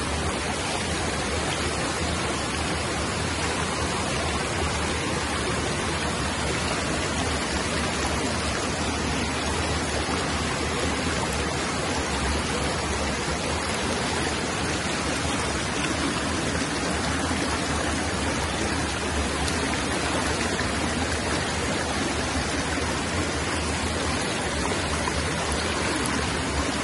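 Fast-flowing shallow stream rushing through whitewater rapids: a steady, even rush of water.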